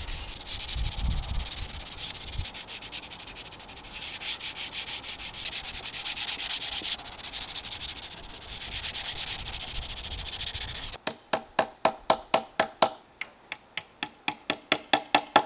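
400-grit sandpaper rubbed by hand over a lacquered wooden high chair to smooth out nibs in the lacquer, a steady scratchy rubbing. About eleven seconds in it gives way to a quick run of sharp clicks, about three a second, growing louder.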